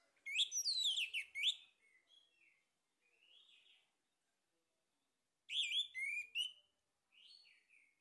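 Male orange-headed thrush singing: a loud burst of quick, sweeping rising and falling notes near the start and another about two-thirds through, with softer short phrases between.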